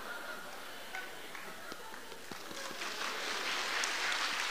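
Audience laughter tailing off, then applause building, denser and louder through the second half.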